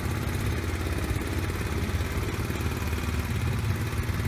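A boat engine running steadily at an even speed, a constant low drone with no changes in pitch.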